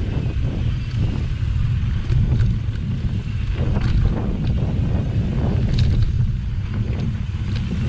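Wind buffeting a GoPro's microphone on a mountain bike riding a dirt singletrack, a steady low rumble. Short clicks and rattles from the bike and its knobby tyres over small stones are scattered through it.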